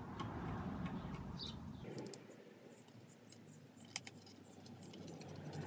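Scissors snipping through thin cardboard: scattered small clicks and crunches beginning about two seconds in, more frequent near the end, with some rustle of the card being handled before that.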